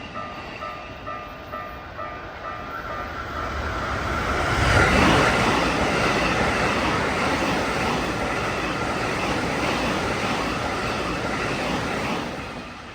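A Japanese level-crossing bell rings with a repeating ding about twice a second. Then a Keikyu electric train passes at high speed; its noise builds from about three seconds in, is loudest around five seconds, and runs on steadily before dropping away near the end, drowning out the bell.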